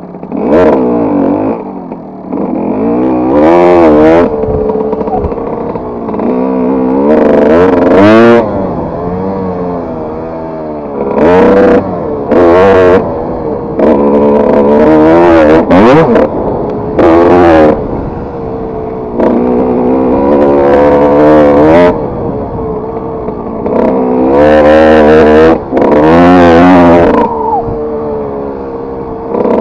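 Kawasaki KX125 two-stroke motocross engine being ridden hard off-road, the throttle opened and shut again and again. The engine note climbs in pitch in a series of loud surges a few seconds apart, falling back between them.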